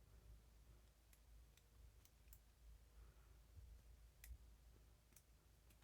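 Near silence broken by a few faint, scattered clicks of a lock pick working the pin stacks inside a vintage Eagle barrel padlock held under tension.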